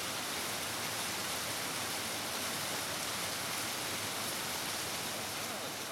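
Steady rush of a mountain stream or small waterfall cascading over rocks, an even hiss with no breaks.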